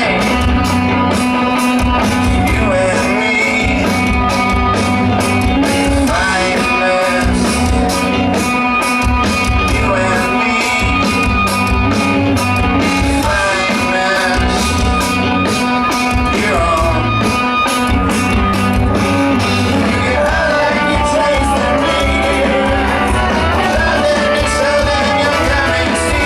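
Rock band playing live: electric guitars, bass and drums with steady cymbal hits, and a lead voice singing over them.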